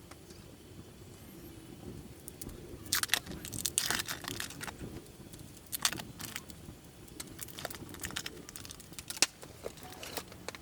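Irregular clicks and crinkly rustling, densest about three to five seconds in, like small objects or packaging being handled.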